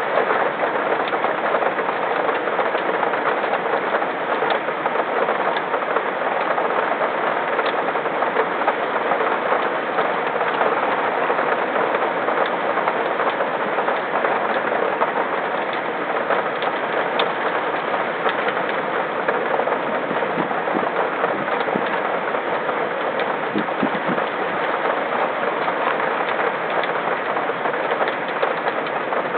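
Steady rain falling on the camera's surroundings, an even hiss with scattered faint drop ticks.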